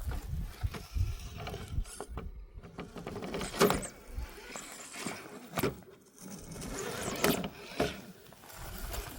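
Axial SCX10 III radio-controlled rock crawler driving over gravel and rocks: electric motor and gearbox whirring, tyres crunching over stones, with a few sharp knocks as it clambers.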